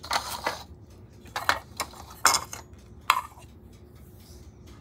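Hard plastic blender jar parts, the black base collar and a clear plastic piece, clattering against a granite countertop as they are handled and set down: four groups of sharp clacks.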